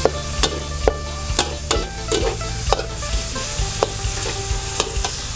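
Pork and egg in soy sauce stir-fried in a pan: a steady sizzle, with the spatula knocking and scraping against the pan about every half second.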